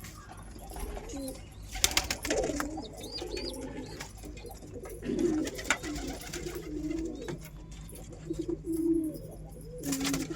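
Domestic pigeons cooing over and over in low, repeated calls. A few sharp clatters come about two seconds in and again near the end.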